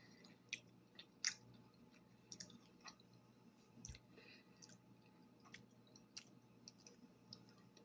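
A person chewing soft fruit: faint, irregular wet mouth clicks, about one or two a second.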